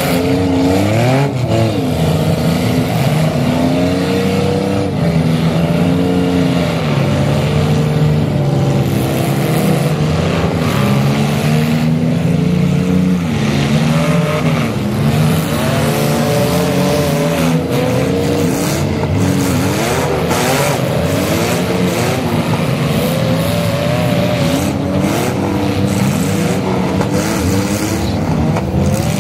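Many compact-car engines running at once, revving up and down and overlapping, with occasional sharp crashes as the cars ram each other.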